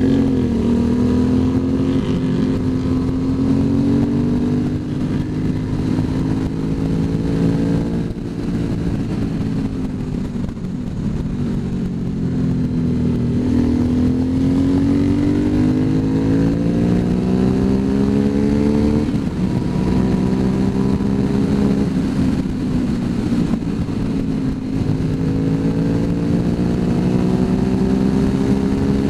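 Motorcycle engine heard from on board while riding, its note climbing slowly under acceleration and dropping back sharply a few times, over steady wind rush.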